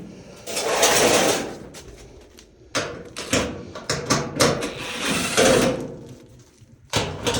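Screws being backed out of a dryer's rear panel with a driving tool: three long runs of mechanical whirring and clicking.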